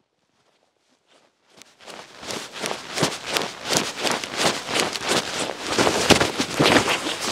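Snow crunching as a person moves through it, in quick repeated crunches that start about a second and a half in and grow louder.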